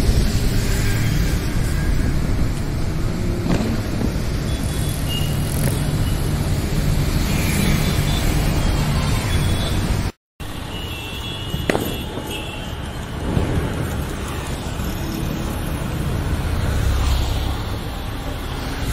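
Steady city road traffic: cars, motorbikes and auto-rickshaws running past, with a few short high tones and a couple of sharp cracks, one about a third of the way in and one a little past the middle.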